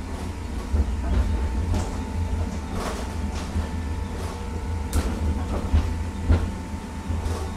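Interior sound of a Zürich Tram 2000 on the move: a steady low rumble with a faint constant whine, and a few sharp knocks and rattles from the car body and rail joints.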